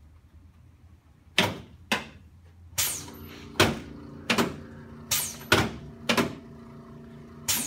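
A series of about nine sharp knocks or clacks, roughly one every half to three-quarters of a second. A low steady hum joins about three seconds in.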